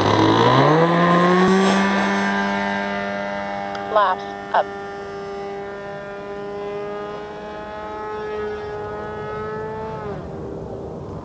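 Phoenix Edge 540 RC plane's engine with a can muffler revving up sharply in the first second on take-off, then holding a steady high-pitched drone as the plane climbs away. Its pitch drops near the end. Two short wavering chirps come about four seconds in.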